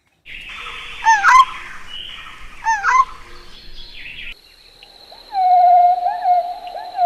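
Bird calls. First a couple of quick bursts of falling chirps over a hiss, about one and three seconds in; then, after a sudden change at about four seconds, a long, steady whistle with short upward flicks and a faint high tone behind it.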